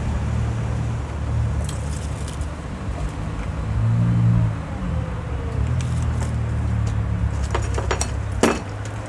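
A steady low engine-like hum that swells briefly about four seconds in, with a few sharp metallic clicks near the end.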